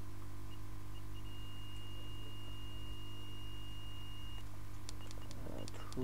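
Hot air rework station beeping as its temperature is set down: a couple of short high beeps, then one long steady beep of about three seconds, then quick short beeps again near the end. A steady low electrical hum runs underneath.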